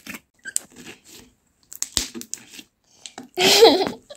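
Slime being stretched and popped: a few sharp little pops and faint crackling as air pockets in it burst. Near the end a brief loud voice sound cuts in.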